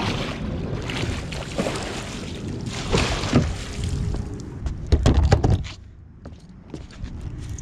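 Water sloshing and dripping as a large magnet-fishing magnet is hauled up on a rope out of the water, then heavy knocks about five seconds in as the magnet lands on the dock's deck boards, followed by a few light clicks.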